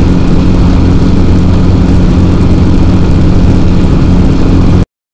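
X-Air microlight's engine and propeller running steadily at a low, even pitch, cutting off suddenly near the end.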